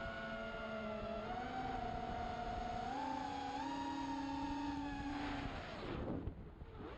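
Motors and propellers of an XHover MXP200B FPV racing quadcopter whining as it flies, the pitch stepping up with throttle twice, then dropping steeply about six seconds in as the throttle is cut and rising again near the end.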